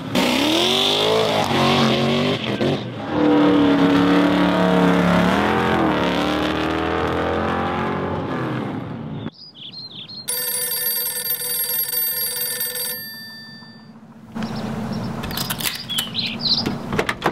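Muscle-car engines revving, the pitch climbing and falling, for about the first nine seconds. After a short break comes a steady ringing tone with many overtones lasting about three seconds, and near the end a rougher, uneven stretch of engine and road noise.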